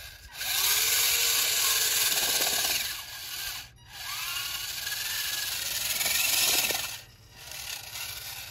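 Electric drive motor and gears of a remote-control model New Holland tractor whining as its wheels spin and churn in loose sand, in two long bursts that rise and fall in pitch, with a short break between them. The tractor is stuck and cannot pull itself out.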